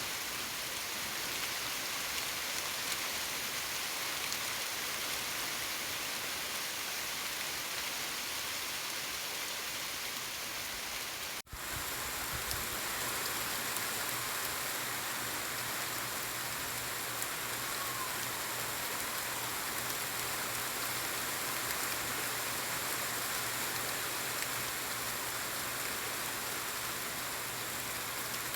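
Steady rain falling on surfaces, an even hiss of many drops. It cuts out for an instant about eleven seconds in, then carries on.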